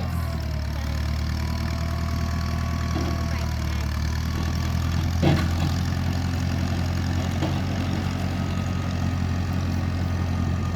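An engine running steadily at idle, a low even drone, with a single short knock about five seconds in.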